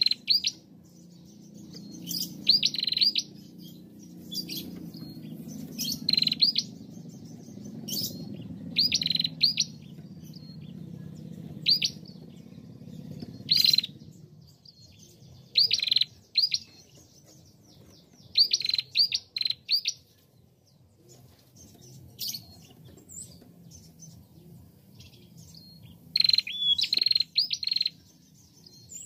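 Female ashy tailorbird (prenjak) calling: loud, sharp high chirps in quick bursts of two to four notes, repeated every second or two, with a pause of several seconds in the second half. A low background rumble sits under the first half.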